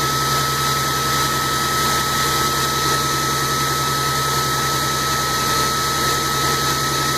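Blow dryer running steadily, drying a wet dog's coat: a constant rush of air with a steady whine.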